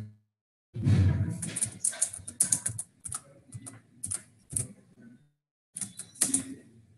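Typing on a computer keyboard: quick keystrokes in irregular runs, with a short pause about five seconds in before a few more.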